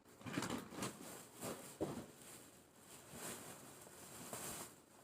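Frozen-meal boxes and packaging being handled and set down: a run of light, irregular rustles and scrapes, with a few small knocks in the first two seconds.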